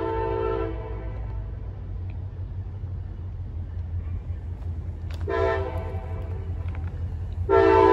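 CSX freight locomotive's air horn sounding a chord of several notes: a long blast cuts off about a second in, a short blast comes around five seconds in, and a final long blast starts near the end, the tail of the long-long-short-long grade-crossing signal. A low rumble runs underneath as the train approaches.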